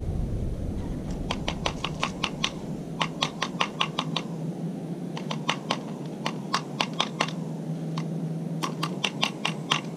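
A paintbrush tapping and stirring in a small paint cup, making four quick runs of sharp clicks, several a second.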